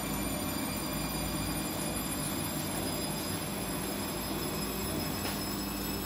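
Siemens front-loading washing machine running mid-cycle: a steady mechanical hum and rumble with a constant tone.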